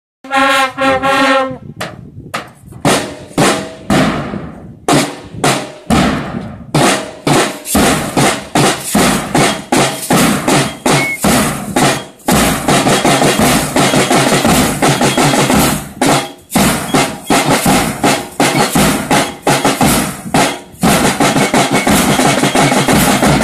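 School bugle-and-drum band playing: a held bugle note opens, then separate drum strokes with the bugles. From about halfway it settles into steady, continuous snare and bass drumming.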